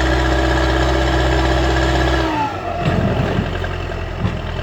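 Heavy diesel engine running steadily. Its note drops a little over two seconds in, followed by a few low knocks.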